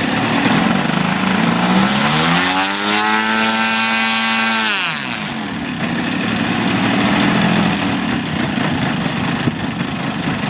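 Engine of a large radio-controlled aerobatic model airplane running. It is throttled up about two seconds in, held at high revs for a couple of seconds, then cut back sharply to a rough idle about five seconds in.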